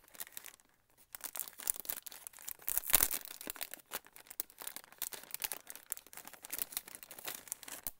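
Clear plastic packaging crinkling and rustling as it is handled and opened, with a louder crackle about three seconds in.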